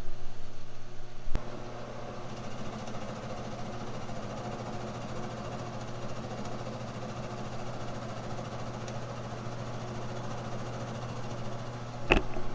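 Small King Industrial PDM 30 milling machine running with a steady motor hum. It is louder for the first second or so and then settles after a sharp click. A knock comes near the end.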